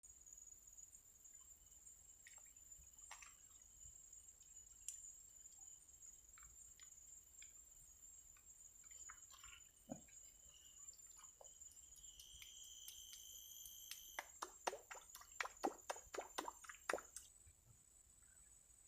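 Near silence with a faint steady high-pitched whine, scattered soft ticks, and a quick run of about a dozen clicks and taps near the end.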